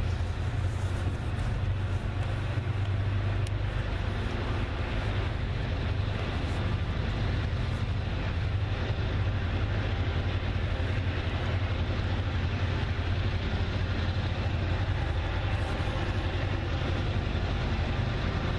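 Steady low rumble of an approaching freight train's lead diesel locomotives (SD70ACe, ES44DC and GP38-2), not yet in sight.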